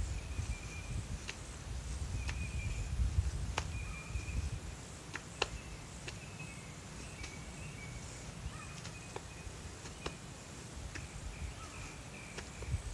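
Outdoor ambience: wind rumbling on the microphone, with faint, short high chirps and a dozen or so sharp clicks at irregular intervals.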